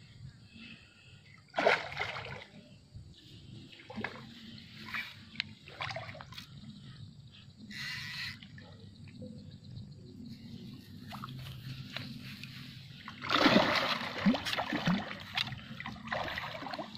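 Hooked large patin (pangasius catfish) thrashing at the water surface, giving several separate splashes; the loudest comes about thirteen seconds in.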